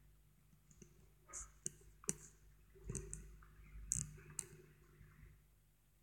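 Faint scattered clicks and soft brushing of a fingertip tapping and rubbing on a tablet's glass touchscreen while colouring in, with about half a dozen sharp taps at irregular intervals.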